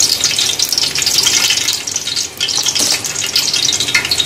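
Hot vegetable oil sizzling and crackling in an aluminium pot, a dense, high-pitched hiss that dips briefly about halfway through.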